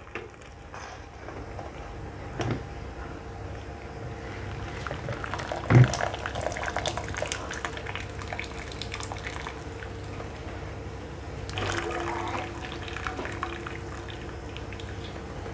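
Water streaming and dripping back into a pot as boiled cassava leaves are lifted out of their cooking water. A light knock comes about two and a half seconds in and a sharper, louder one about six seconds in.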